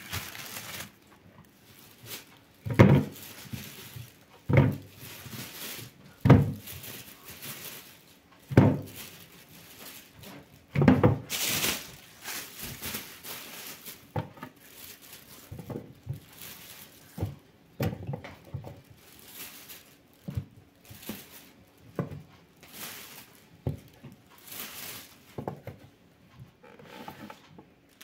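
Bagged vegetables and a plastic food container being handled and set down on a counter: a run of dull thumps and knocks, heaviest in the first half, then lighter taps and plastic bags rustling.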